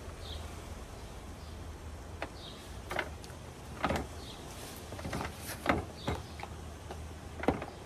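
Clear plastic food container and packaging being handled and worked open by hand: several sharp clicks and crinkles at irregular intervals over a low steady hum.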